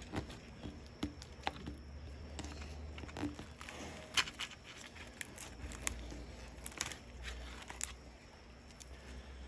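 Knife cutting into the thick skin of a dead iguana's tail on a plastic board: scattered sharp clicks and short scrapes of the blade and gloved hands handling the carcass.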